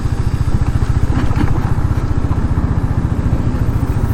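Single-cylinder motorcycle engine running close to the microphone, a steady fast low pulse, with a brief clatter a little over a second in.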